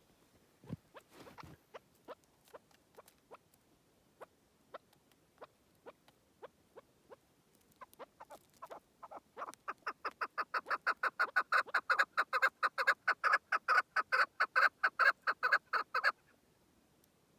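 Chukar partridge calling: scattered single clucks that speed up into a fast, loud run of chuck notes, about six a second, which stops abruptly near the end. A low thump under a second in.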